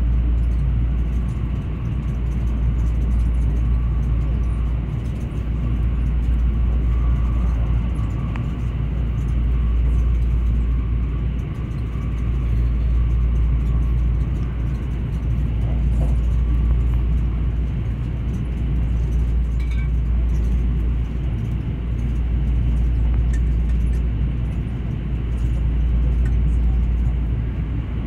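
Inside the cabin of a JR 281 series Haruka limited express train running at speed: a steady low rumble from the wheels and running gear on the track, swelling and easing every few seconds.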